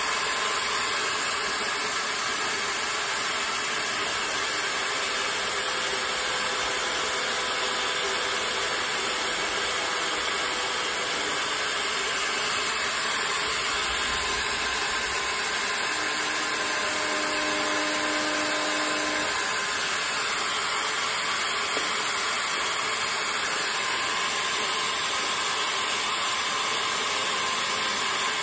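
Small electric motor running steadily, spinning a 12 gauge shotgun shell held in its chuck.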